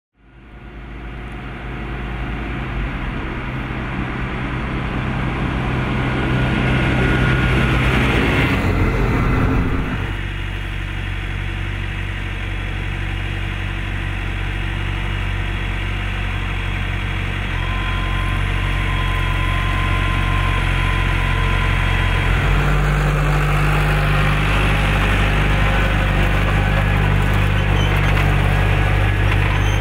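Claas Arion 550 tractor's four-cylinder diesel engine running under load while ploughing. The sound fades in at the start, dips slightly about ten seconds in, and the engine note rises a little about two-thirds of the way through.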